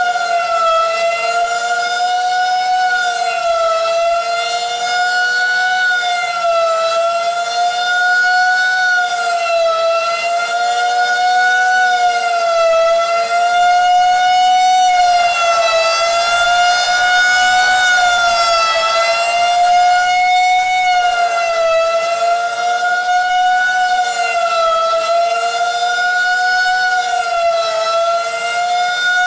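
Outdoor tornado warning siren sounding its monthly test: a loud, steady two-tone wail whose pitch and loudness waver gently about every four seconds.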